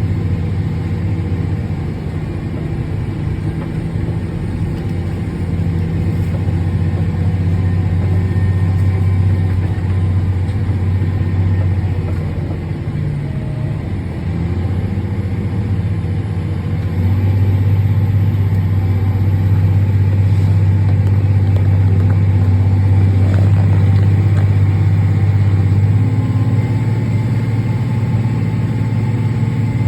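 Heavy farm machinery's engine running steadily under load, a deep drone that dips and changes pitch a few times.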